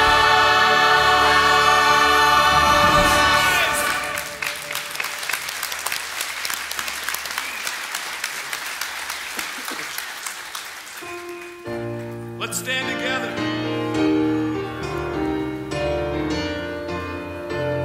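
A choir and band hold the final chord of a worship song for about four seconds, then the congregation applauds for about seven seconds. Soft instrumental music starts near the end.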